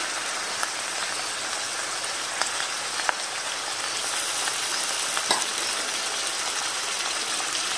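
Steady sizzle of bitter gourd, onions and chicken frying in oil in a wok, with a few faint clicks as chopped tomatoes are dropped in.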